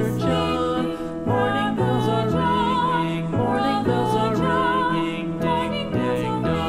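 Background music: a slow melody held with vibrato over sustained chords.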